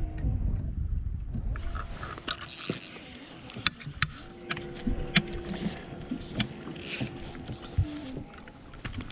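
A small mechanism clicking repeatedly, with a steady whir for a few seconds in the middle. Wind rumbles on the microphone at the start.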